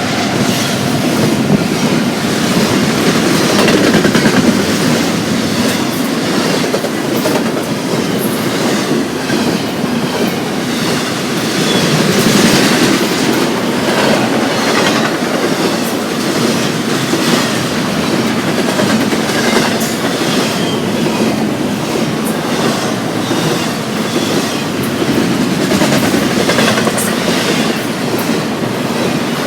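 Freight train cars rolling past at close range, with a steady rumble and the clickety-clack of wheels striking rail joints at uneven intervals.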